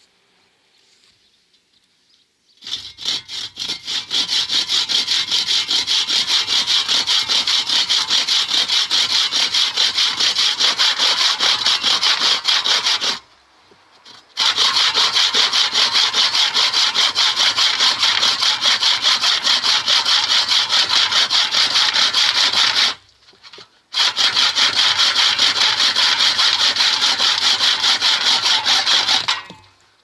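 Large coarse-toothed hand saw with a blade of about 550 mm cutting through a thick wooden board in rapid, even back-and-forth strokes. The sawing starts a couple of seconds in, pauses briefly twice, and stops just before the end.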